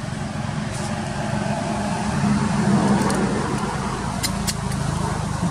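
Low, steady motor drone that swells a couple of seconds in, with a few sharp clicks about four and a half seconds in.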